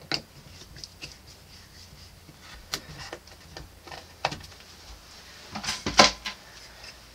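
Screwdriver and fingers working at the screws of a plastic Grohe GrohFlex shower valve plate: scattered small clicks and taps, with a louder cluster of knocks about six seconds in. The screws are being backed off slightly so the plate's clips will fit.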